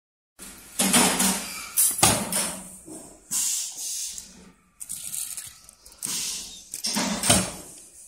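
Small metal cabinet roller catches clattering in bursts as they are handled at a bench press, with two sharp metal clanks, about two seconds in and near the end.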